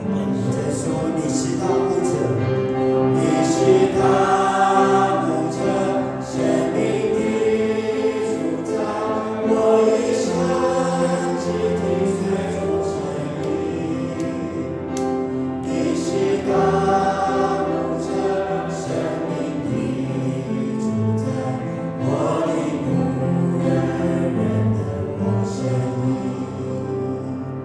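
Congregation singing a Christian hymn together as a choir of voices, with musical accompaniment.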